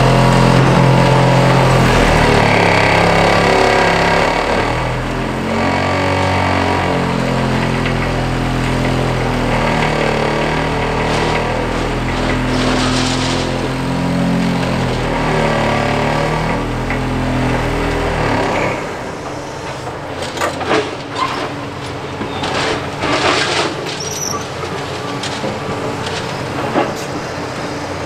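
Liebherr 946 excavator's diesel engine running hard, its note rising and falling with the load. About two-thirds of the way through the engine drops back, and a run of cracking and knocking impacts from demolition debris takes over.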